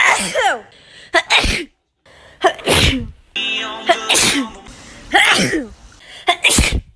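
A person sneezing again and again, about six sharp sneezes roughly a second apart, several ending in a voiced cry that falls in pitch.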